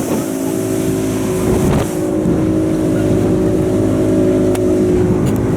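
Motorboat engine running at a steady pitch over a constant rush of wind and water.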